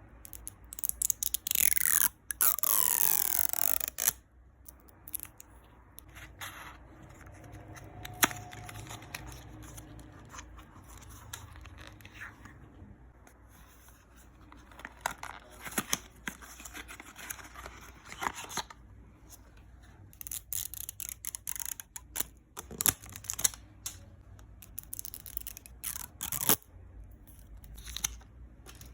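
Makeup packaging being opened: loud tearing of plastic wrap or tape for the first few seconds, then quieter crinkling, scraping and sharp clicks as the packaging is handled.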